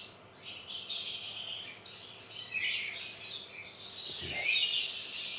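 Birds chirping and squawking in dense, overlapping high-pitched calls, louder from about four and a half seconds in, with a brief low thump just before.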